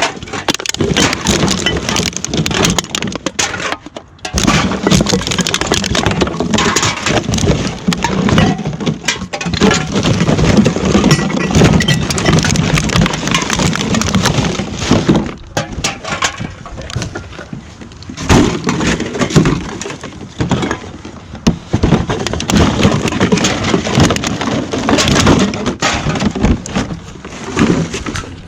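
Continuous clattering and crackling of assorted items being rummaged through and handled, with many sharp knocks and clinks.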